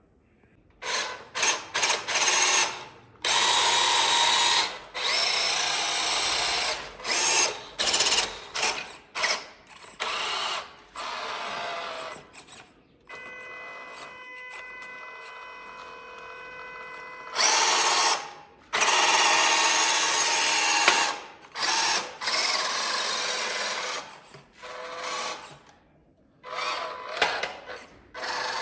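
Small electric motors of radio-controlled toy vehicles whirring in repeated short bursts, starting and stopping abruptly, with a steadier, quieter whine held for a few seconds around the middle.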